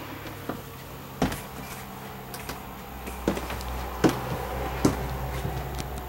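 Footsteps inside a camper: four dull thuds on the floor, the last three less than a second apart, over a low steady hum.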